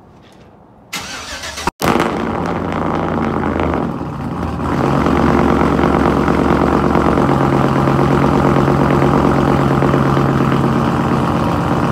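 Cammed pickup-truck engine cold-started through an exhaust with no muffler, no resonator and one catalytic converter removed: the starter cranks briefly about a second in, the engine catches and runs at a fast idle, then settles into a loud, steady idle.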